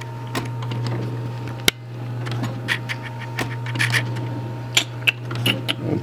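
Coin pusher machine running with a steady low hum while quarters clink and slide against each other. One sharp click comes just under two seconds in, and the clinks get busier near the end.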